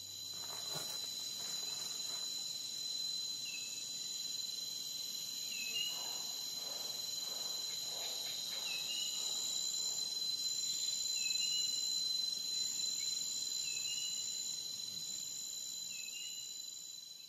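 Steady high insect chirring, like crickets, with a short chirp repeating about every two seconds.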